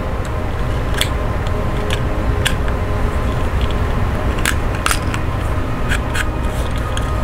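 Scattered sharp clicks and light scrapes of plastic model kit parts being handled and cleaned of flash, over a steady low hum.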